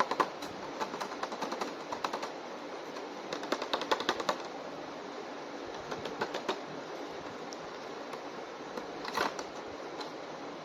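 Bursts of quick, light plastic clicks and taps from handling plastic action-figure toys and their packaging, in several short clusters over a steady background hiss.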